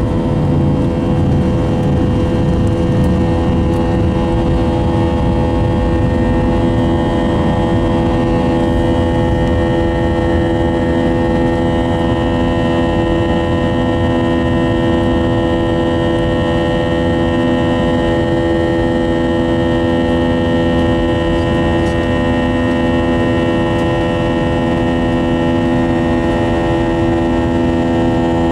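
The Airbus A320's IAE V2500 turbofan at takeoff thrust, heard from the cabin beside the engine: a steady buzzsaw drone made of many evenly spaced tones, the sign of the fan blade tips running faster than sound. A low rumble beneath it is strongest in the first couple of seconds and then falls away.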